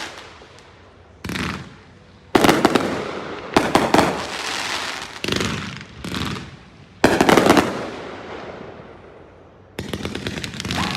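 Consumer aerial fireworks going off in a finale: about seven sharp bursts a second or so apart, each followed by fading crackle and sizzle.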